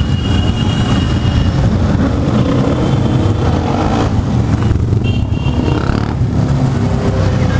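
Motorcycle and quad bike engines running as a slow procession rides past, a steady low rumble. A thin high tone sounds briefly twice, near the start and about five seconds in.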